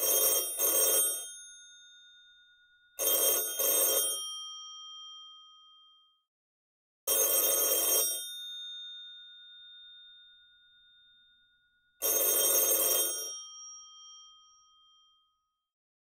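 Vintage rotary-dial telephone's bell ringing in standard cadences: two double rings about three seconds apart (the UK/Australian pattern of 400 ms on, 200 ms off, 400 ms on, 2 s off), then two single one-second rings five seconds apart (the European pattern of 1 s on, 4 s off). Each ring leaves the bell's tone hanging briefly.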